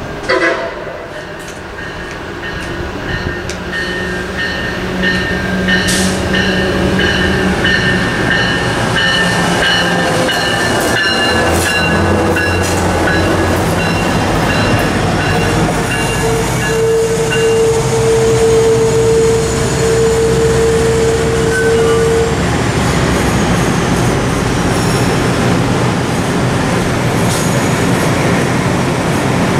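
A MARC commuter train passing: the diesel locomotive grows louder over the first few seconds as it approaches and goes by, then the stainless-steel passenger coaches roll past on the rails, loud and steady.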